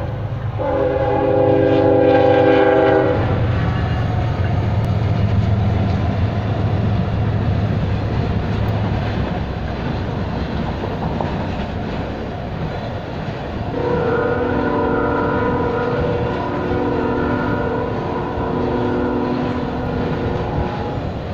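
Norfolk Southern freight train's locomotive air horn sounding a chord for about three seconds over a low diesel rumble, then the steady rush and rail clatter of double-stack container and trailer cars going by. The horn sounds again in a long blast from about two-thirds of the way through.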